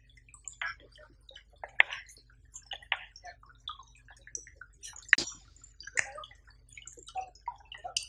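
Shallow stream trickling and dripping over stones, a busy patter of small water sounds, with a few sharper clicks about two, five and six seconds in.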